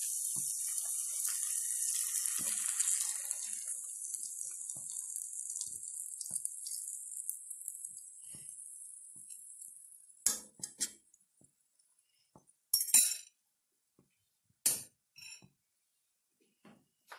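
Sizzling in a hot frying pan as beaten eggs are poured over sautéed sausage and vegetables, fading out about ten seconds in. Then a few sharp clinks of kitchenware.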